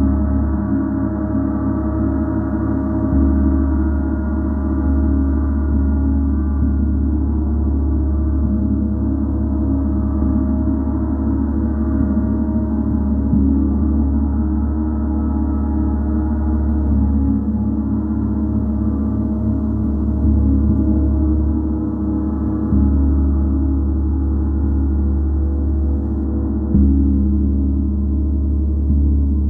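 A gong played continuously for sound healing: a dense, sustained wash of low, humming tones. Fresh soft strokes swell it a few times.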